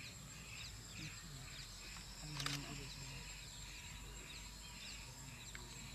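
Wild natural ambience: a steady high-pitched insect drone with a pulsing chorus beating about twice a second, and short high bird chirps. A single sharp click with a brief low hum comes about two and a half seconds in.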